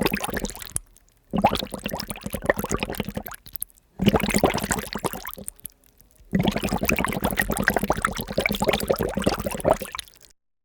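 Water bubbling and gurgling in four separate bursts of rapid popping, each a second to four seconds long with short pauses between, stopping dead near the end.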